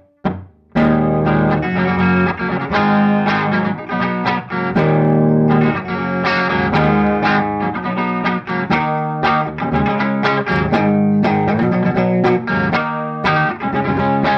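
Guitar music: a few short, separate notes, then a full guitar part playing continuously from about a second in.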